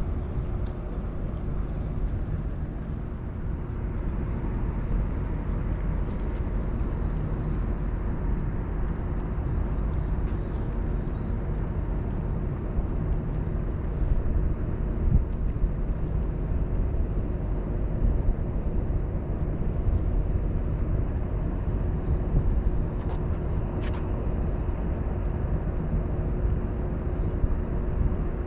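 Steady low outdoor rumble, mostly wind buffeting the microphone, with a faint steady hum beneath it and a few faint clicks.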